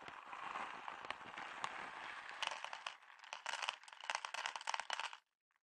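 Plastic bag of dry cat food crinkling as it is handled, then from about halfway through dry kibble rattling and pattering into a plastic bowl, stopping shortly before the end. It is the feeding sound that the cat knows and comes running to.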